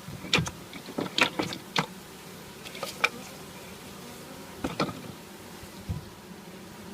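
Honeybees buzzing as a steady low hum around the newly installed colony, with a scatter of sharp clicks and knocks over it, several in the first two seconds and a few more later.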